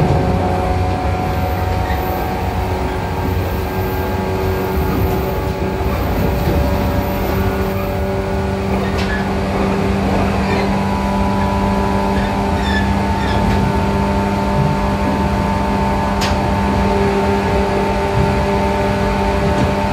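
Onboard running sound of a JR 415-series electric train's motor car: the traction motors hum in several steady tones over the rumble of wheels on rail as the train runs at speed. About halfway through, the motor tones change and a higher tone comes in.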